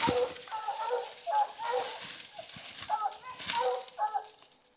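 Footsteps crashing through dry brush and dead leaves, branches crackling. Over them a hound whines in short repeated cries, about three a second.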